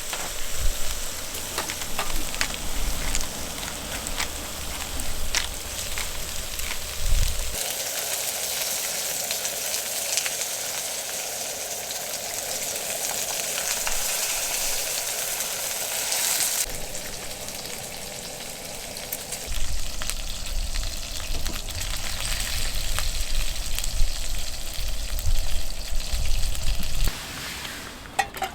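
Food sizzling in a hot pan, a steady frying hiss with scattered small pops and crackles. The sound changes abruptly a few times, as if separate takes were cut together.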